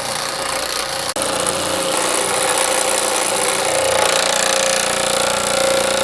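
Baileigh PH-19 reciprocating power hammer running with a beading die, rapidly hammering a bead into a sheet-metal panel: a continuous loud clatter, broken by a split-second gap about a second in.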